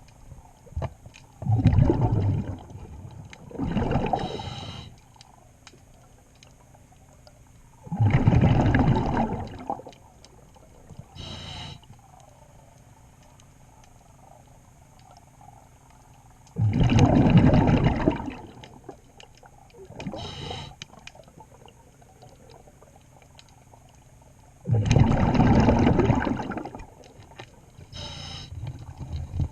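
Scuba diver breathing through a regulator underwater: four loud bursts of exhaled bubbles about eight seconds apart, each followed a couple of seconds later by a shorter, fainter breath sound.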